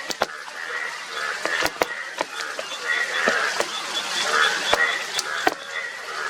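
Indian bullfrogs giving repeated rough calls, about one to two a second, in a breeding chorus of yellow males. Sharp scattered clicks fall between the calls.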